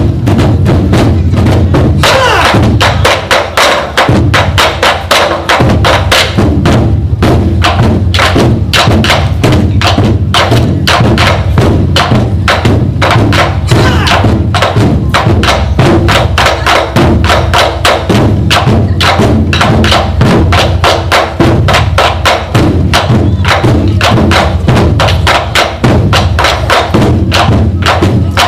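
Korean drum ensemble playing a fast, loud rhythm, dense sharp strikes several a second with woody clacks mixed in.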